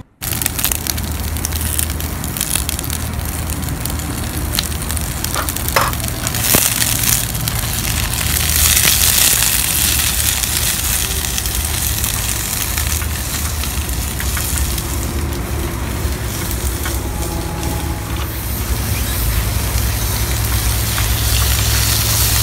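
Green beans sizzling as they are stir-fried in a ceramic-coated frying pan on a portable butane cassette stove, with the spatula scraping and tossing them in the pan. A steady low hum runs underneath.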